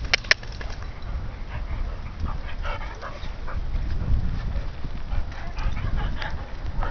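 Dog whimpering in short, high whines, with a couple of sharp clicks right at the start.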